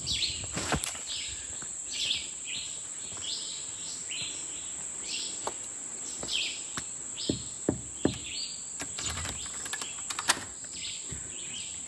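Insects droning in the undergrowth, a steady high-pitched tone with a short chirp repeating roughly once a second, over soft footsteps on a dirt path. Near the end come a few sharp metallic clicks from a doorknob being gripped and turned.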